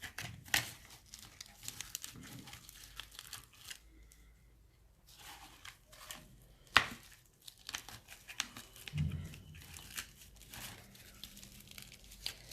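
Kitchen handling noises while lemons are cut and packed in salt into a jar: rustling, crinkling scrapes with scattered sharp clicks and knocks, the loudest one about seven seconds in.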